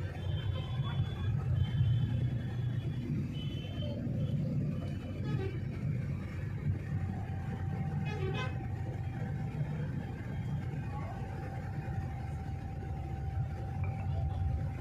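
Low, steady rumble of a Volvo coach's engine and running gear, heard from inside the passenger cabin. A few short, high tones sound in the first three seconds, and a faint steady whine joins from about seven seconds in.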